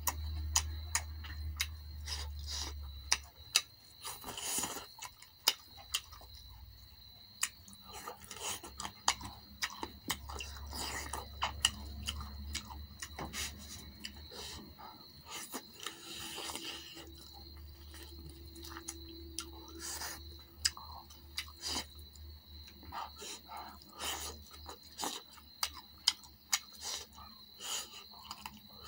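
Close-up chewing and wet mouth sounds of a person eating spiced chicken drumsticks by hand: irregular lip smacks and sharp clicks as the meat is chewed and pulled from the fingers.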